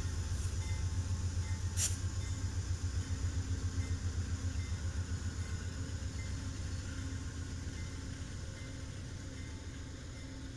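Amtrak GE P42DC diesel locomotives passing at close range: a deep, pulsing engine drone that slowly fades, with a single sharp click about two seconds in.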